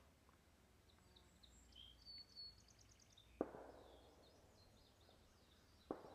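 Two faint, sharp gunshots about two and a half seconds apart, each with a short echo trailing off. Faint bird chirps come before the first shot.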